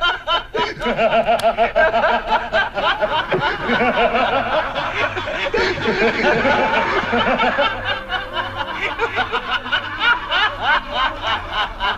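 Several men laughing together, their voices overlapping in rapid, repeated bursts of 'ha-ha' laughter.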